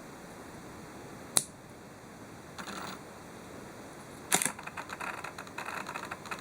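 Nikon D5500 with an AF-S 16-85mm f/3.5-5.6 zoom lens: a sharp click a little over a second in, a short buzz, another sharp click about four seconds in, then a run of irregular, rattling buzzes. This is the lens's abnormal noise, which shows up whenever the camera is switched on and is louder while zooming and in live view.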